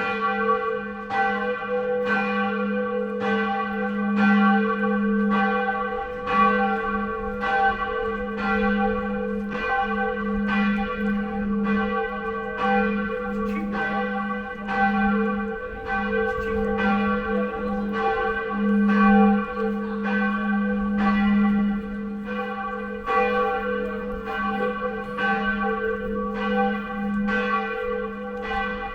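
Church bell tolling, struck about once a second, each stroke ringing on into the next so that a deep hum holds under the strikes.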